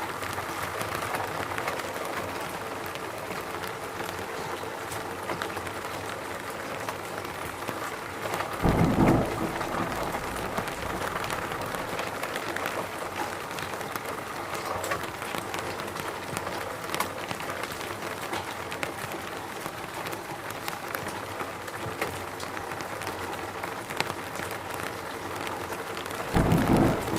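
Steady rain falling, with many small drops pattering and ticking. Two brief low rumbles come in, one about nine seconds in and one near the end.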